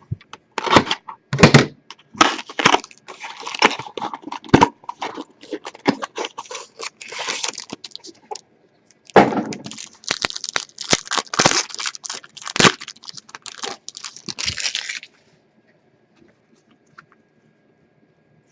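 Trading card pack wrapper being torn open and crinkled in two stretches of crackling, with a few sharp knocks as the pack and cards are handled. It goes quiet about three seconds before the end.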